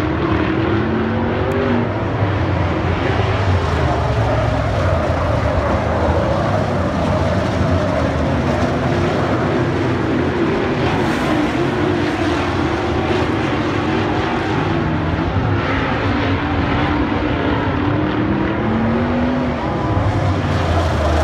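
A pack of dirt-track modified race cars lapping at racing speed, several engines running at once and overlapping, their pitch rising and falling as the cars go around the oval.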